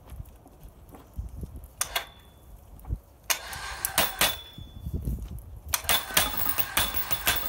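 Mains-powered electric scaffolding winch running under load in two bursts, about three seconds in and again near the end, hoisting itself up the scaffold frame on its own cable, with clicks and rattles through the running.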